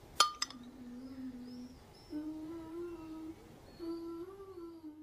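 A soft voice humming three low held notes, the closing phrase of the song, the last bending up slightly and back down. A sharp click, followed by a smaller one, comes just before the first note and is the loudest sound.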